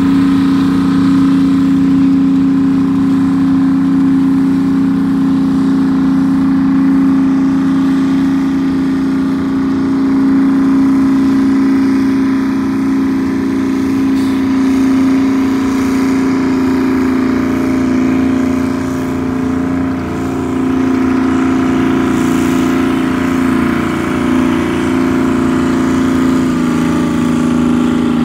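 Antique tractor engine running hard at a steady speed under load, pulling a weight-transfer sled, with a brief dip about two-thirds of the way through.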